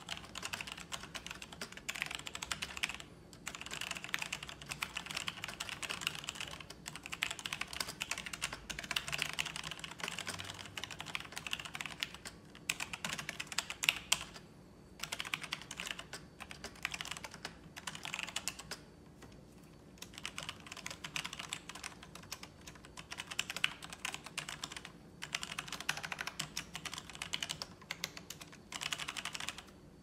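Logitech G Pro mechanical keyboard with tactile Romer-G switches being typed on: fast runs of key clicks broken by several short pauses. The typing stops just before the end.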